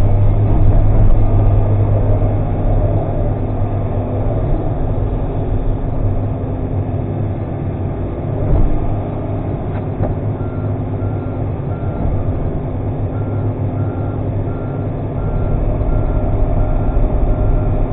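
Komatsu PC300 excavator's diesel engine running steadily while the machine moves on its tracks, with its travel alarm beeping about twice a second from about ten seconds in.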